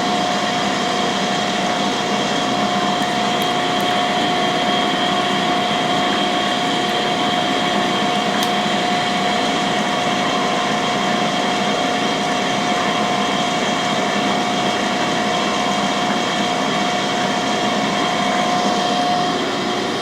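Cam grinding machine running a roughing pass on the intake lobes of a camshaft core: a steady grinding hiss with a constant whine.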